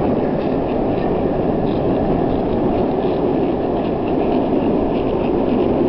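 Longboard wheels rolling on rough asphalt: a steady, even rumble.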